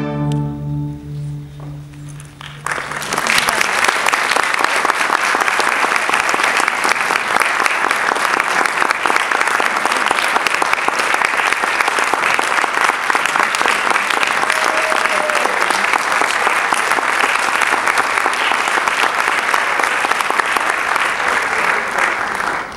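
A string orchestra's final chord rings and fades away, then audience applause breaks out about three seconds in and continues at a steady level, dropping off near the end.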